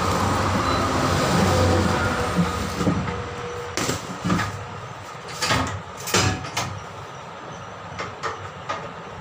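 Tyre-changer machine's turntable motor running with a steady hum for about three seconds, then stopping. Several sharp metal clanks and knocks follow as the tyre bead is worked onto the rim with tools.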